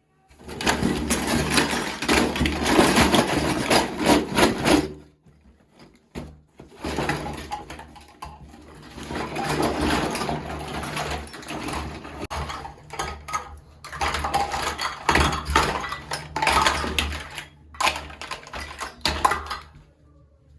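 Crinkling and rustling of plastic packaging with small clicks and knocks of plastic toy pieces being handled during an unboxing, in long stretches with a short pause about five seconds in.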